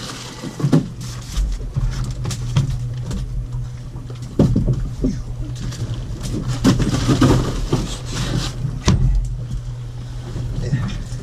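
Boat engine running at a steady idle, with repeated knocks and rustling of plastic and gear on deck.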